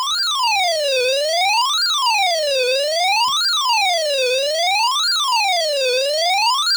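Electronic alert siren, a clean tone wailing smoothly up and down about once every second and a half to two seconds. It is the alarm sounding during a NOAA Weather Radio weekly test of the tone alert system.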